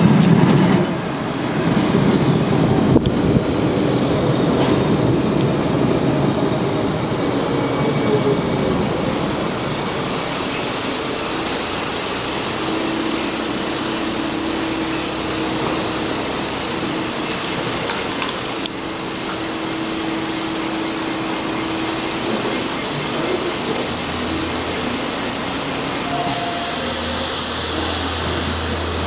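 Baltimore Metro Subway train pulling into the station, loudest in the first few seconds as it runs in and slows to a stop. It then stands at the platform with a steady hiss.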